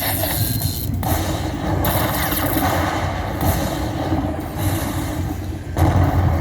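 Electronic slot machine's spinning-reel sound effects over casino floor noise, a dense mechanical-sounding clatter during a bonus round.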